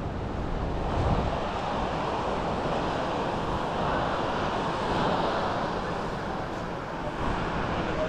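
Steady wash of sea surf on a sandy beach, with wind rumbling on the microphone and a stronger gust about a second in.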